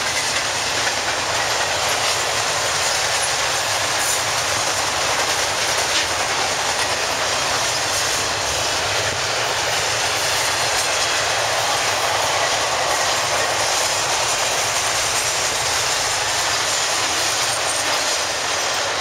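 Double-stack intermodal freight train rolling past: a steady noise of steel wheels on the rails, with a few faint clicks.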